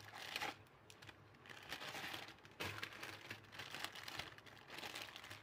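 Faint crinkling of a Maggi instant-noodle packet's plastic wrapper in the hands, in irregular bursts, as the dry noodle cake is worked out of it.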